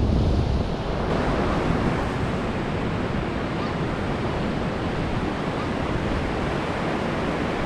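Steady wash of surf breaking on a sandy beach, with wind buffeting the microphone, heavier in the first second.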